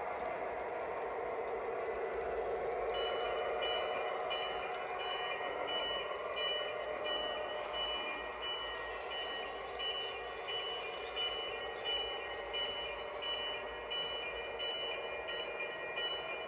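Lionel O gauge Missouri Pacific RS-11 diesel model running on three-rail track, a steady motor-and-wheel hum. From about three seconds in, a bell-like ding repeats about twice a second.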